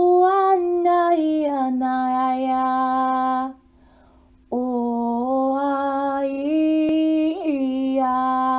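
A woman toning long, sustained wordless vocal notes, light-language style: one held tone breaks off about three and a half seconds in, and after a pause of about a second a second held tone begins, the pitch stepping down and up between sustained notes.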